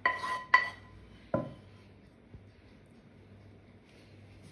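Kitchenware clinking: three sharp knocks with a short ring, the first two about half a second apart and the third nearly a second later.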